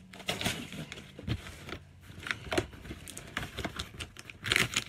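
Cardboard shipping box being handled and opened: irregular rustling, scraping and tapping of the flaps and packing tape, with a louder flurry near the end.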